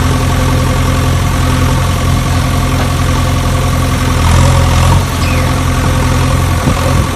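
A heavy engine idling steadily, slightly louder about four seconds in. It is an engine sound effect laid over the footage, not the sound of the string-pulled toy excavator itself.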